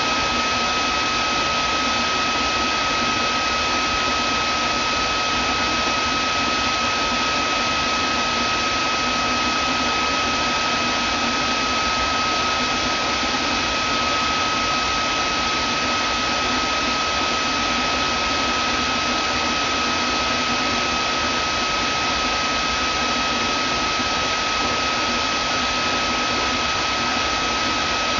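Vacuum cleaner running steadily, a constant rushing noise with a steady high motor whine.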